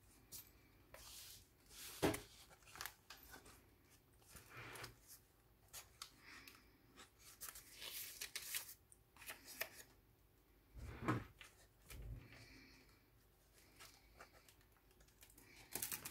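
Pages of a handmade paper junk journal being turned and its paper pockets and inserts handled: faint, scattered rustling and swishing of paper, with a few soft knocks as pages are set down.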